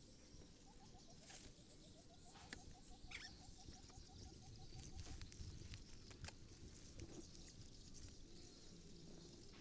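Faint rustling and scattered clicks of hands tying string around a plastic pipe trap and stake. A rapid run of short chirps, about six a second, sounds for the first half and then stops.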